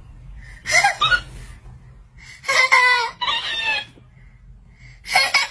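A toddler's short, high-pitched squeals and a talking cactus toy echoing them back in a sped-up, squeaky voice, in three bursts.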